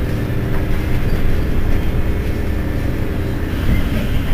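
Heuliez GX137 city bus's rear-mounted diesel engine idling steadily at a stop, a low even rumble. A higher hiss joins in near the end.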